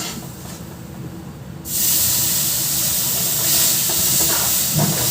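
Water poured into a hot pan of halwa cooking in ghee and sugar, sizzling and hissing with steam. The sizzle jumps sharply louder about a second and a half in and stays loud.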